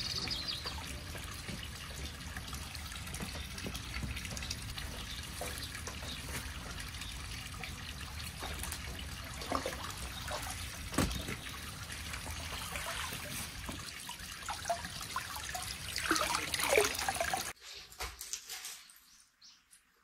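Water trickling steadily at a garden pond's stone edge, with a few splashes as greens are rinsed in a bamboo colander. It cuts off suddenly near the end.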